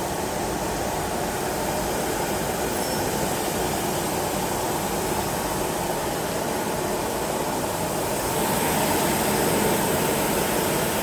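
High-speed paper cup forming machine (DEBAO-138S) running continuously, a steady mechanical din that gets a little louder from about eight seconds in.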